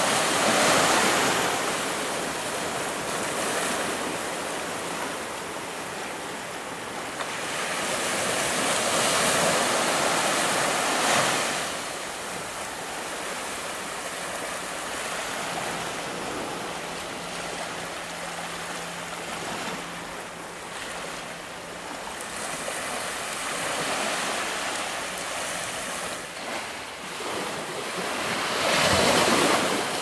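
Ocean surf breaking on a rocky shore: a steady wash of waves with big swells of breaking surf about a second in, again around ten seconds in, and near the end.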